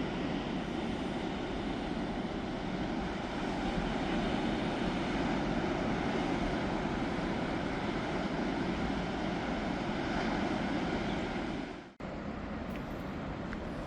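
Steady wind rushing over the microphone, with a sudden break about twelve seconds in.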